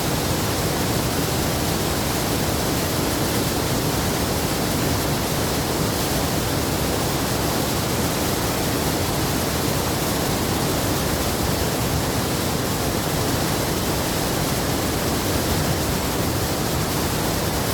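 Glacier waterfall rushing: a steady, loud roar of falling water with no breaks.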